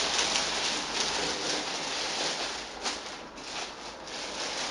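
Clear plastic bag rustling and crinkling in uneven bursts as it is pulled off a subwoofer driver.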